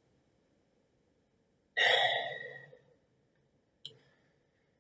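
A man's audible sigh about two seconds in, a breathy exhale that fades over about a second, followed by a brief click near the end.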